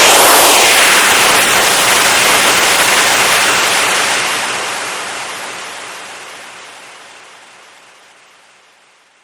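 Compressed air hissing out in a strong, steady blast that slowly fades away over several seconds, as the air pressure runs down.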